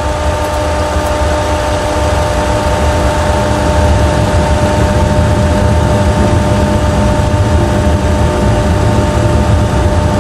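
Boeing 737 Classic full-flight simulator's rendered landing-rollout sound: engines in reverse thrust making a loud low rumble, building over the first few seconds after the reversers unlock and then holding steady, with a steady high whine running through it.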